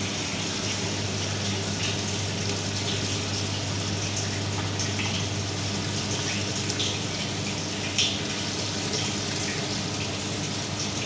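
Water pumped into a hydroponic ebb-and-flood bucket, bubbling and gurgling up at the inlet as the bucket fills, over a steady low pump hum.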